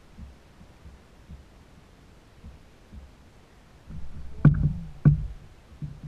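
Knocks on a plastic kayak's hull: soft low thumps about twice a second, then two loud, sharp knocks about half a second apart past the middle.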